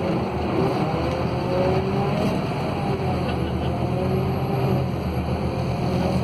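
Scania K280UB city bus with a Scania DC09 five-cylinder diesel and a ZF Ecolife automatic gearbox, driving along, heard from inside the passenger cabin. Its drivetrain gives a steady low hum with a whine that drifts slowly up and down in pitch.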